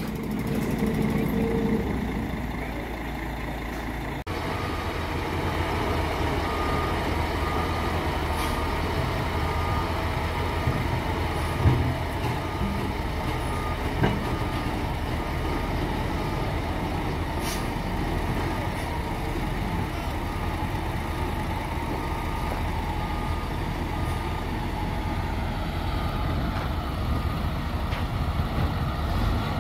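Caterpillar 140K motor grader's diesel engine running steadily as the grader reverses down a lowboy trailer's ramps, its reversing alarm beeping at an even pace. A couple of short knocks partway through.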